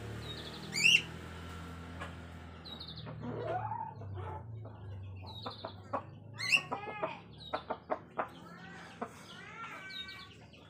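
Rooster clucking, with high bird chirps, the loudest about a second in, and a run of sharp taps in the second half. A low steady hum runs underneath.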